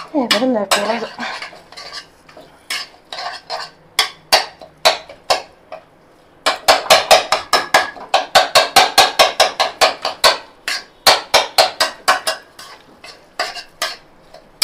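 A flat spatula scrapes and clacks against a metal kadai as tofu bhurji is stirred and broken up. The strokes come irregularly at first, then in a fast, even run of about four to five a second through the middle.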